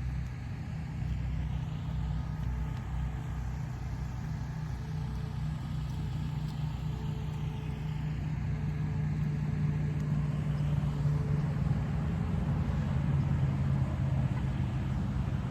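A motor vehicle's engine running, a steady low drone that grows a little louder past the middle.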